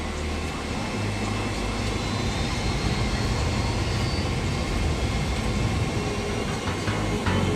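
Airliner engines and rushing noise heard inside the cockpit during the takeoff roll, a steady roar that slowly grows louder as the aircraft accelerates down the runway.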